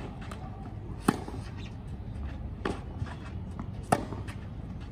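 Tennis rally: a ball struck back and forth by rackets, three sharp hits about a second and a half apart.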